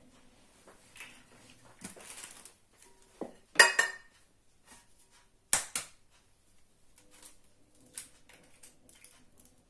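Eggs knocked against the rim of a bowl to crack them for separating the yolks from the whites: two sharp knocks about two seconds apart, the first ringing briefly, with lighter clinks and handling around them.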